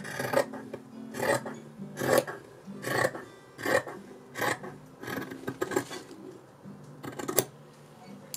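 Scissors cutting through linen fabric: a string of about nine crisp snips, roughly one every three-quarters of a second, with a pause before the last one. Faint music runs underneath.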